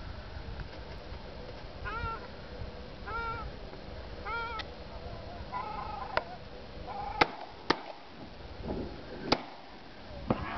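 Waterfowl honking calls repeated about once a second, then several sharp shotgun shots fired at a passing flock: two close together about seven seconds in and another loud one about two seconds later.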